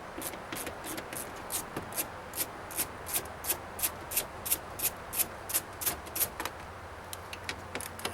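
Ratchet wrench with a 10 mm socket clicking as it backs out bolts, a steady series of sharp clicks about two or three a second that grow fainter near the end.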